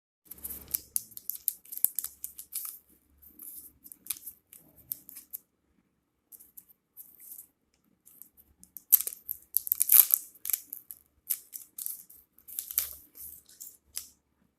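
Chocolate packaging being unwrapped and torn open by hand: irregular bursts of crinkling and tearing, with a short lull about five seconds in and the loudest tearing about nine to ten seconds in.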